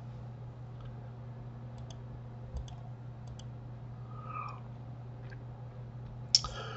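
Faint computer mouse clicks, some in quick pairs, over a steady low electrical hum.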